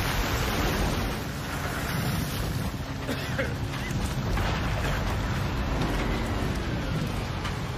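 Landing craft engine running steadily as the boat runs in, with wind and waves against the hull.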